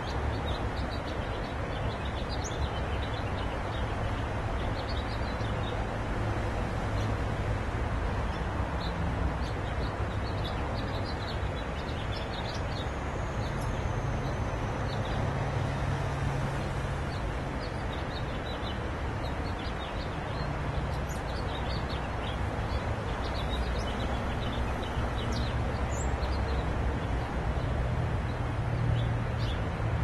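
Outdoor background: a steady low rumble with small birds chirping faintly and intermittently.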